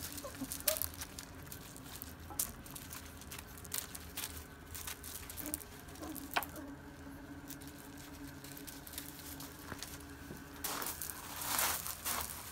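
Irish terrier puppies scrambling over loose gravel: irregular crunching and pattering of small paws on the stones, with scattered clicks. There is a louder stretch of gravel crunching near the end.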